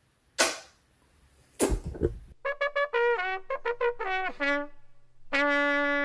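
Two quick swoosh transition effects, then a short trumpet jingle: a quick run of notes ending on one long held note.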